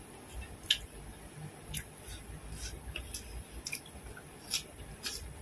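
Wet open-mouthed chewing with repeated sharp lip-smacks, about eight of them, the loudest near the start.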